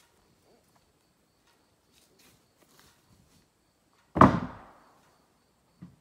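A single loud, heavy thud about four seconds in that dies away within half a second, with a lighter knock near the end and faint scattered clicks before it.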